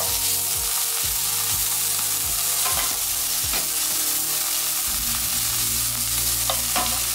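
Sliced onions with garlic and ginger sizzling as they fry in oil in a non-stick frying pan, stirred around the pan with a wooden spoon.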